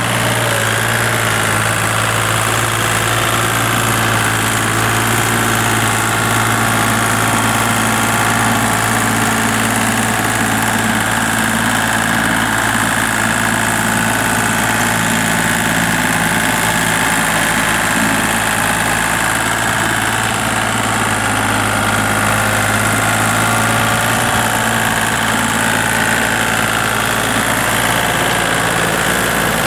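Compact Kubota tractor engine running at a steady, unchanging speed while pulling a rotary tiller through wet field soil.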